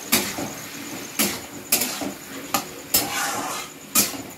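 A spatula knocking and scraping against a metal kadhai as a thick vegetable curry is stirred: about six sharp clanks at uneven intervals, with a short scrape between them.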